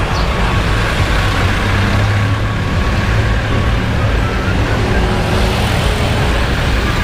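Steady low rumble of wind and road noise from a rider moving along a street, mixed with passing traffic.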